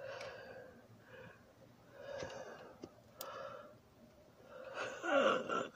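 A person breathing and making soft, breathy vocal sounds close to the microphone, in about five short spells; the loudest, near the end, falls in pitch.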